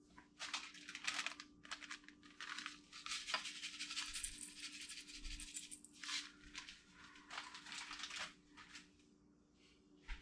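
Powdered fish seasoning shaken from its container onto raw fish fillets in a stainless-steel bowl: quick, irregular, rattling and hissing shakes in fits and starts, stopping about eight and a half seconds in.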